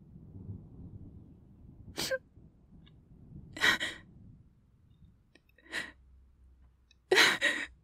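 A woman crying without words: four breathy sobs and sharp sniffling inhales a second or two apart, the last a double one and the loudest. A faint low rumble sits under the first couple of seconds.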